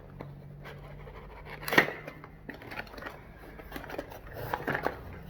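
Small taps, clicks and scratches of a perfume bottle and its packaging being handled, with one sharper knock about two seconds in.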